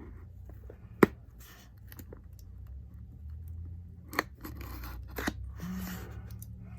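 A cardboard shipping box being worked open by hand: a sharp click about a second in, two more clicks around four and five seconds in, and scraping and rustling in between.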